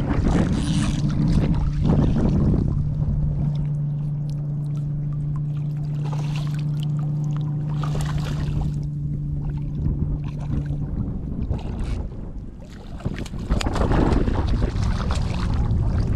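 Water splashing and sloshing as a hooked fish thrashes at the surface beside a wading angler, the splashing loudest in the last few seconds as it is brought to the net. Under it, a boat motor hums steadily for several seconds, stopping about eleven seconds in.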